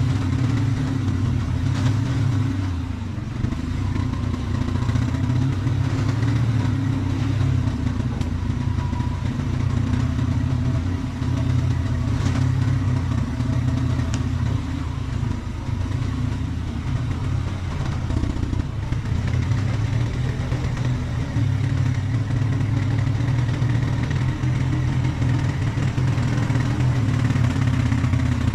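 ATV engine running steadily as the quad is ridden along, with a few faint knocks over rough ground.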